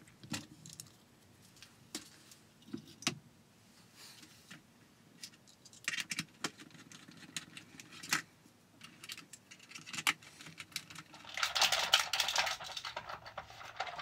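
Light plastic clicks and knocks of a small robot vacuum's shell being handled and fitted back together, then from about eleven seconds in a louder, continuous rattling from the unit.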